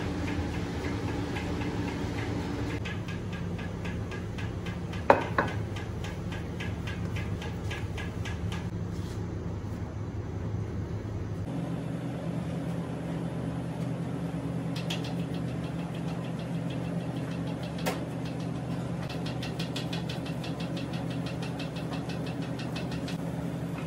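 Steady low machine hum, with runs of fast, even ticking and a sharp knock about five seconds in. The hum shifts slightly in pitch about halfway through.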